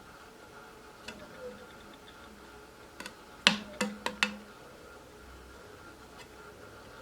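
Turnigy Multistar 2213-980Kv brushless motor with a factory-defective bearing that squeaks, giving a short falling squeak among faint ticks. About halfway there is a quick run of four sharp clicks, each with a brief low hum after it.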